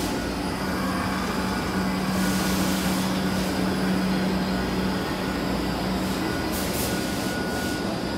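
NSW 86 class electric locomotive standing with its equipment running: a steady hum with a thin high whine above it, and two brief hisses.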